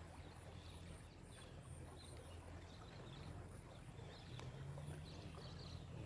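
Faint outdoor ambience: a steady low rumble with scattered faint bird chirps and a repeating high tick.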